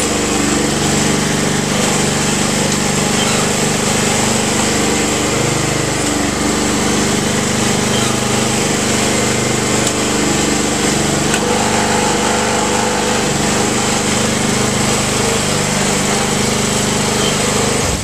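Honda HRR216 walk-behind mower's single-cylinder engine running steadily at a loud, even speed with its blade removed. It cuts off suddenly at the end.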